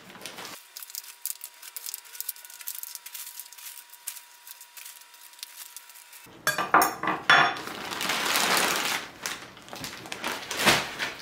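Potting soil being added to a plant pot: light clinks and scrapes of hard material against the pot, with a louder rush of pouring soil about eight seconds in.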